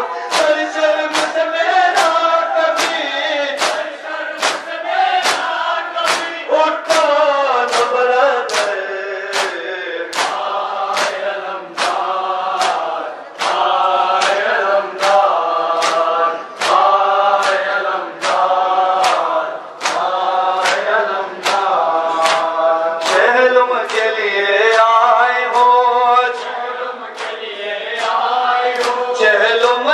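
Mourners chanting an Urdu nauha (lament) together in a chorus of men's voices, while chest-beating matam slaps land in a steady rhythm of about three strokes every two seconds.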